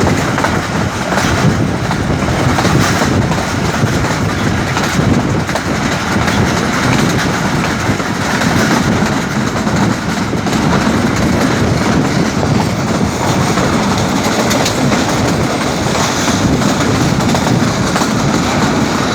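Pakistan Railways Rehman Baba Express train running, a steady rumble with its wheels clicking over the rail joints.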